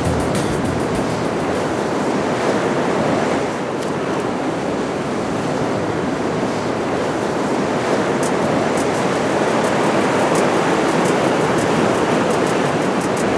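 Sea surf breaking and washing over rocks: a steady rushing noise.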